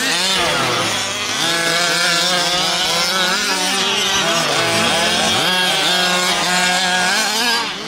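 Small two-stroke petrol engines of several large-scale gas RC buggies racing together, revving up and down as the throttles open and close, with one dropping low and then shooting back up about five seconds in.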